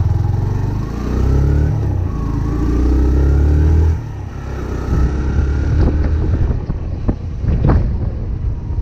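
Yamaha YBR 125's single-cylinder four-stroke engine under way, rising in pitch as it pulls for a few seconds, then dropping off suddenly about four seconds in and running on more roughly, with a couple of short knocks near the end.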